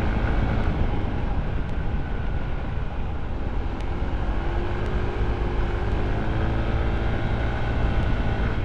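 Honda ADV 160 scooter's single-cylinder engine running under load, climbing a steep uphill with its revs holding steady and pulling strongly, over a steady low rumble. Its CVT is fitted with a washer and center spring.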